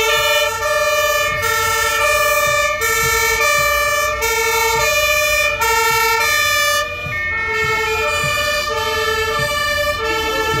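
German two-tone fire engine sirens (Martinshorn) sounding the alternating high-low "tatü-tata" as the trucks pass, each tone held a little under a second. About seven seconds in, the pitches shift and overlap, as another vehicle's siren takes over.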